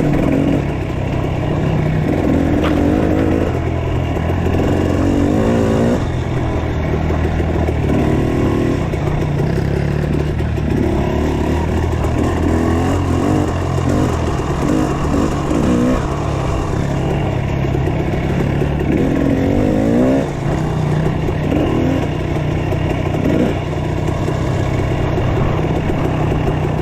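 Dirt bike engine running close by on a trail ride, its revs rising and falling again and again as the throttle is worked.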